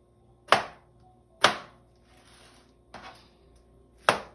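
A knife chopping through pineapple and striking the cutting board three times: two cuts about a second apart, then a pause before the third.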